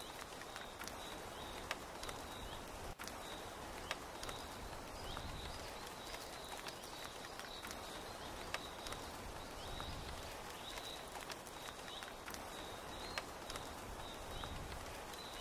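Rainforest rain ambience: steady rain pattering with scattered sharp drips, and a short high chirp repeating about once a second.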